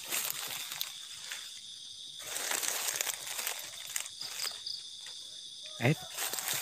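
Night insects chirping steadily, with footsteps rustling through dry leaf litter as someone walks. One short, loud sound about six seconds in stands above the rest.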